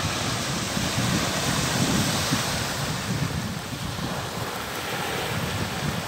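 Small waves breaking and washing in over shallow sand at the water's edge, with wind blowing across the microphone in gusts.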